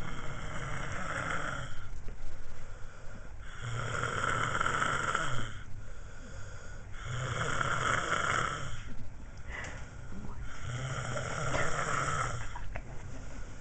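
Snoring in slow, regular breaths: a snore of about two seconds roughly every three and a half seconds, four in all.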